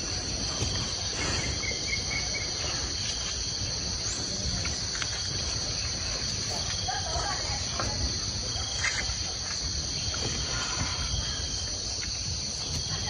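Forest insects keeping up a steady, high-pitched drone, with a few faint rustles and ticks scattered through it.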